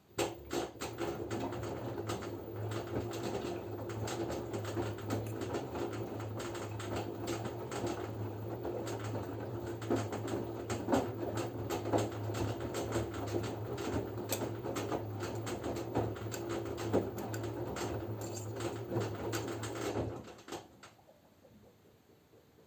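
LG F10B9LD front-loading washing machine in its wash phase: the drum turns for about twenty seconds, with laundry and water tumbling over a steady motor hum, then stops suddenly near the end.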